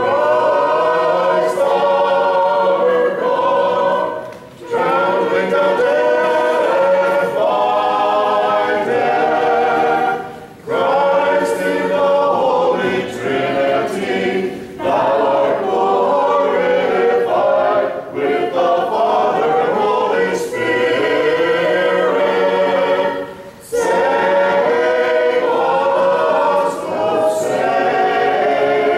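Orthodox church choir singing a liturgical hymn a cappella in harmony, in sung phrases broken by short pauses for breath about four times.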